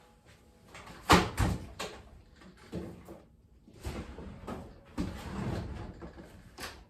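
A series of irregular knocks and bumps, about half a dozen, the loudest pair about a second in, with handling noise between them.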